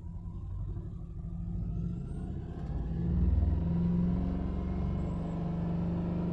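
Mercedes-Benz car engine revved from idle in neutral, its sound building over about three seconds and then held at raised revs. The engine has just been started after sitting unused for two months.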